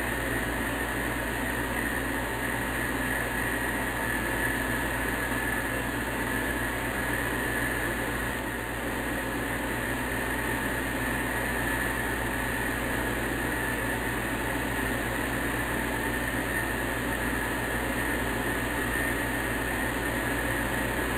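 Steady, unchanging hiss-like noise with no distinct events.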